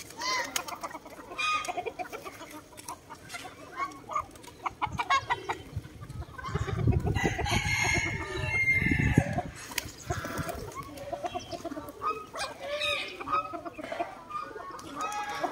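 Free-ranging chickens clucking with many short calls, and a rooster crowing during a louder stretch about halfway through.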